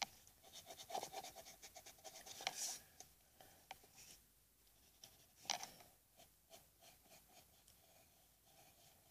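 Graphite pencil scratching on paper in quick short strokes while drawing. The strokes come thickly in the first few seconds, with one louder scrape about halfway through, then thin out.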